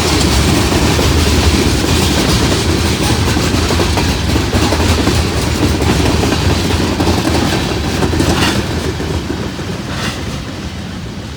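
Freight cars of a long CSX mixed manifest train rolling past close by, a steady loud rumble with the wheels clacking over rail joints. The sound fades somewhat near the end.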